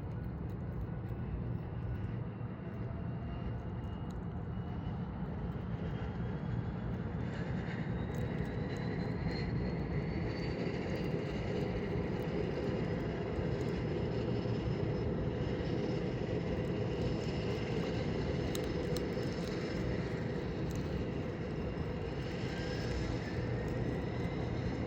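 Propeller aircraft engine droning steadily, slowly growing louder as it approaches, with faint whining tones that slowly rise in pitch.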